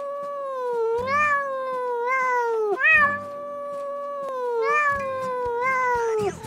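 A cat meowing in long drawn-out calls: one already under way, then three more, each close to two seconds, swelling up at the start and sliding down in pitch as it ends.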